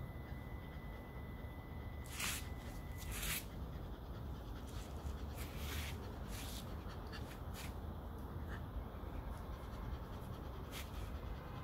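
A grooming brush pulled through a Shetland sheepdog's thick coat in short brushing strokes, about nine of them at irregular intervals, over a steady low background rumble.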